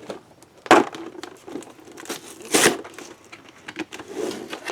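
Action-figure packaging, a cardboard box with a plastic insert, being handled, crinkled and pulled at to get it open, with two louder tearing sounds, one under a second in and another about two and a half seconds in.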